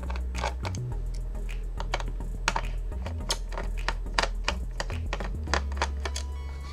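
Irregular light clicks and ticks, about two a second, of a small screwdriver working the metal heatsink screws inside a Dell Latitude E6440 laptop, over background music with a low bass line.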